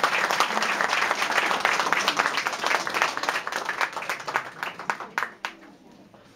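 Audience applause that thins out to a few scattered claps and dies away about five seconds in.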